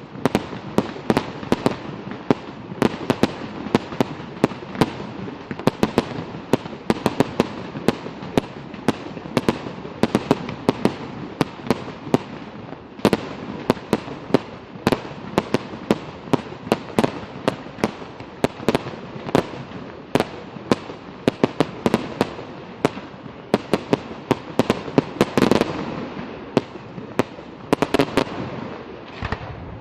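Fireworks display going off in a rapid, continuous barrage of sharp bangs, several a second, over a constant background of overlapping reports.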